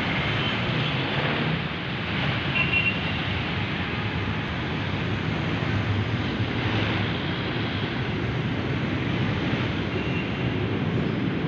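Steady city street traffic: jeepneys and cars driving past close by, a continuous low engine rumble with tyre noise.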